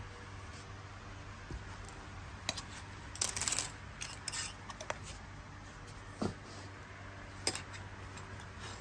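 Clothes hangers sliding and clicking against one another along a metal clothes rail as garments are pushed aside, with a quick rattle of several clacks about three seconds in and single clicks scattered through, over a steady low hum.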